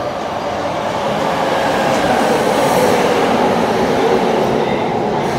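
Keikyu 600 series electric train pulling into a station platform. Its wheels and running gear rumble louder as it approaches and then hold steady as the cars roll past.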